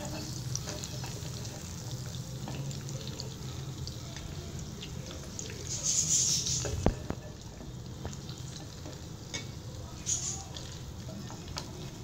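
Beef koftas sizzling in shallow hot oil in a non-stick pan as a slotted spatula scrapes under them and lifts them out, with small clicks throughout. A louder sizzle about six seconds in is followed by a sharp knock of the spatula.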